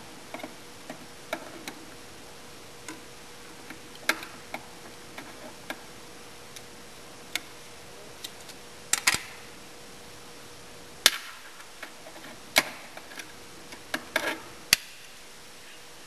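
Irregular clicks and metallic taps of a screwdriver and fingers working on the terminal screws and contacts of a Wood-Mizer sawmill's up-down drum switch in its steel box, with a few sharper clicks in the second half. A faint steady hum runs underneath.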